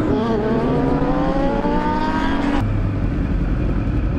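Sportbike engine revved hard under acceleration, its pitch climbing steadily for about two and a half seconds. It then breaks off suddenly into steadier, lower engine and road noise.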